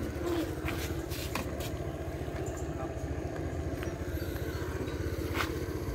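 A small engine running steadily at low revs, its firing heard as an even low pulsing, with a couple of faint clicks over it.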